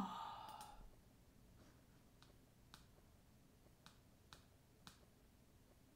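Six faint, sharp computer mouse clicks, scattered irregularly a half second to a second apart. It opens with the tail of a short falling vocal hum, the loudest sound here.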